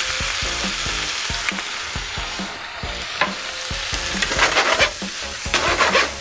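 Head-on white shrimp sizzling steadily in a hot nonstick frying pan over high heat. From about four seconds in, a wooden spatula scrapes and tosses them in quick bursts.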